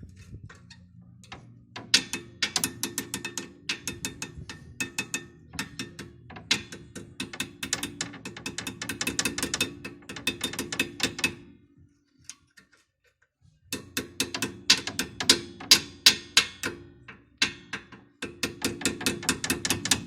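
Quick series of light hammer taps on metal, several a second, driving the brake-pad retaining pin back into a rear brake caliper; the taps stop for about two seconds near the middle, then resume.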